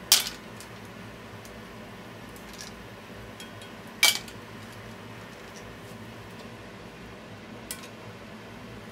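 Asari clam shells clinking against metal as cooked clams are lifted out of the pan with chopsticks and dropped into a metal bowl: two sharp clinks about four seconds apart and a fainter one near the end, over a faint steady hum.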